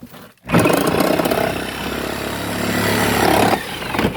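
A power tool runs loudly for about three seconds, starting about half a second in and cutting off abruptly near the end.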